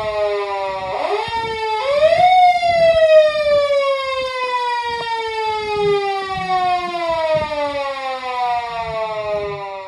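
Police car siren wailing: its pitch jumps up twice in quick succession, then falls slowly and steadily for about seven seconds.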